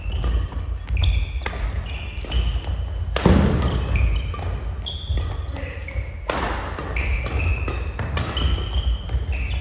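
Badminton doubles rally on a wooden gym floor: rackets strike the shuttlecock with sharp cracks, the loudest a little over three seconds in, while court shoes squeak in short high chirps and feet thud on the boards.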